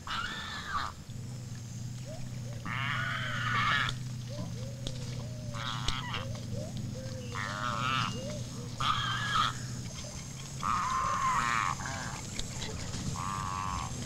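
A colony of birds calling in mangroves: about eight separate calls with wavering pitch, each half a second to a second long, and short softer chirps between them, over a steady low hum.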